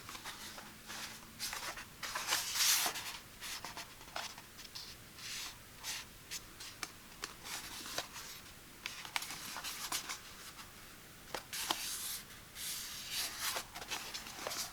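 Hands handling and opening a heating pad's packaging: irregular scraping and rustling with scattered light clicks and taps. The longest rustle comes about two seconds in, and another cluster of rustles comes near the end.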